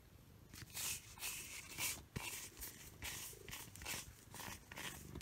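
Rubber grooming glove rubbing through a short-haired cat's fur, in quick hissing strokes about two a second.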